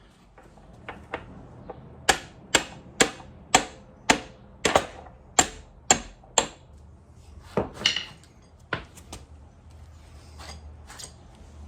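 Hammer tapping on a Suzuki GSX-R600's rear axle to drive it out: a run of about ten sharp strikes, roughly two a second, starting about two seconds in, then a few lighter, scattered knocks.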